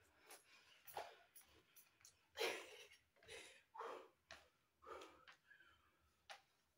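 Faint, short huffing breaths pushed out during a high-knee exercise, coming irregularly about once or twice a second, the loudest about two and a half seconds in.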